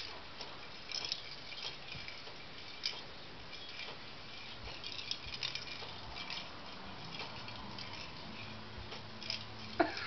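Irregular light clicks and taps of a hollow plastic ball with holes being nudged and pushed across carpet by a lop-eared rabbit. A brief voice near the end is the loudest sound.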